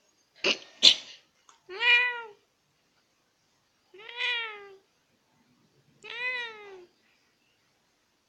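Domestic cat meowing three times, about two seconds apart, each meow rising then falling in pitch. Two short sharp sounds come just before the meows, in the first second.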